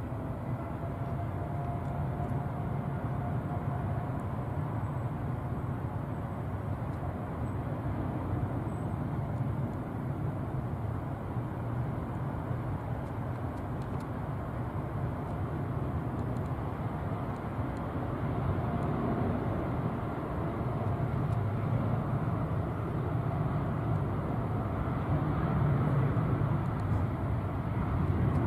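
Jet engine noise from a Boeing 787-9, twin GEnx-1B turbofans, moving on the runway and spooling up for takeoff. It is a steady rumble that grows gradually louder, with a faint high whine that rises slightly in the first several seconds.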